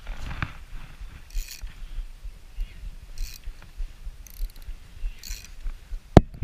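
Shimano Stradic spinning reel being worked by hand, its gears and bail giving short spells of mechanical clicking and whirring, with one sharp click near the end.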